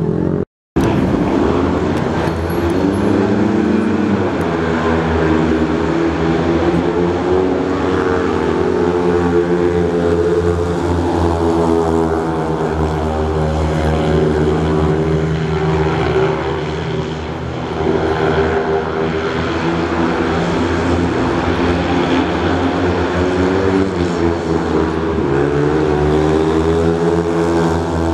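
Speedway motorcycles racing, their single-cylinder engines running hard and rising and falling in pitch as they go round the track. The sound cuts out for a split second near the start.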